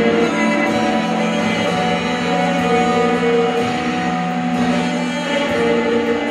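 Music led by guitar, with long held notes.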